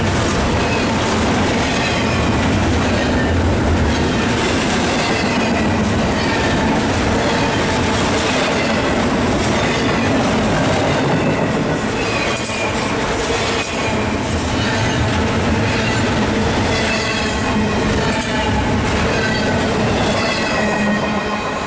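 Double-stack intermodal well cars of a freight train rolling past at speed: a steady rumble with steel wheels clattering over the rail joints. Wheel squeal comes and goes as high, wavering tones.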